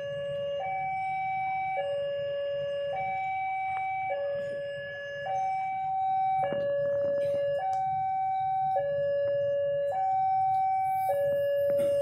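Railway level-crossing warning alarm sounding its electronic two-tone signal, alternating between a higher and a lower tone about once a second, the sign that a train is approaching the crossing. A low rumble runs beneath it, and there is a short knock about six and a half seconds in.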